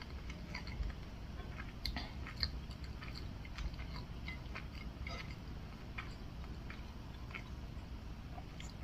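A person chewing food, with soft, irregular wet mouth clicks and smacks.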